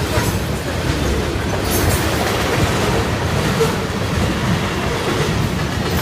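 Freight cars of a passing CN mixed freight train rolling by close up: a steady, loud rumble of steel wheels on the rails, with a few short knocks.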